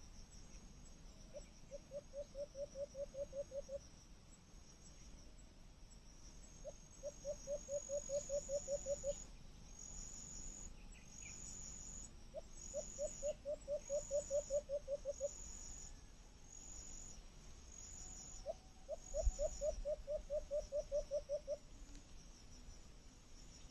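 Insects chirping, with high short chirps about once a second. Four times a lower call sounds, a quick series of about ten pulses lasting some two and a half seconds.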